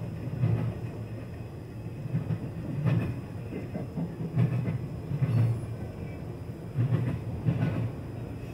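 Freight train of autorack cars rolling past, its steel wheels clacking over the rails in an uneven run of heavy thumps about once or twice a second over a steady rumble, heard from inside a car's cabin.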